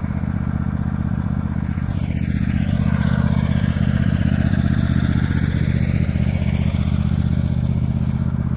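Lawn mower engine running steadily at an even speed, a little louder in the middle.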